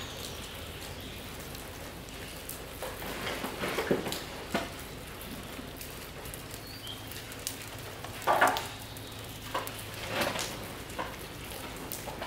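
Cats eating wet food from a plastic tray close by: wet chewing and lapping, with scattered crackly smacks over a steady hiss and a few louder bursts, the loudest about eight seconds in.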